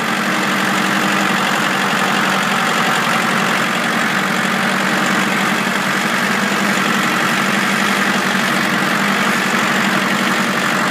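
Ford 1910 compact tractor's three-cylinder diesel engine running steadily, heard close up from the driver's seat.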